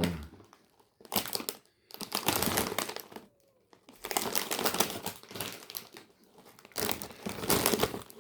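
Plastic snack wrappers crinkling as packets are picked up and handled, in several stretches with short pauses between them.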